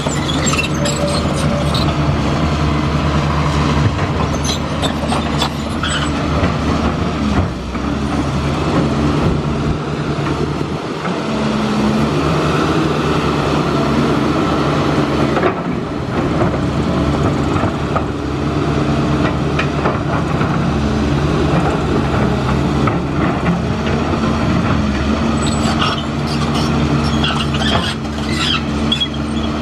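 Engine of heavy construction machinery running steadily, its pitch shifting a little as it works, with scattered metallic clanks and squeaks.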